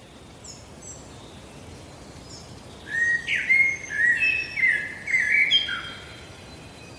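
A bird singing a quick run of clear chirps, loudest from about three to six seconds in, with fainter high chirps before, over a steady background hiss.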